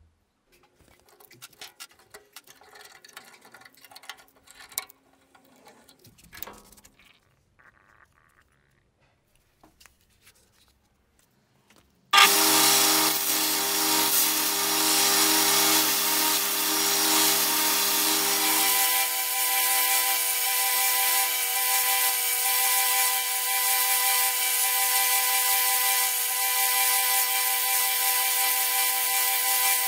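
Faint handling clicks and rattles, then about twelve seconds in a belt grinder starts and runs loudly and steadily as a wooden knife handle is ground against the belt. Its tone shifts a few seconds later and then holds steady.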